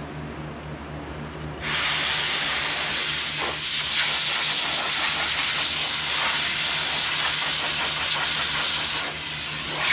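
Compressed air rushing out of a hose adapter from an air compressor's accessory kit: a loud, steady hiss that starts suddenly about two seconds in and cuts off near the end. A steady low hum runs underneath.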